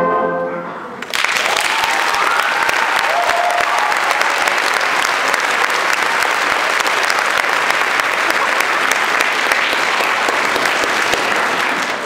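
A concert band's held final chord fades out in the first second, then audience applause breaks out suddenly and continues steadily.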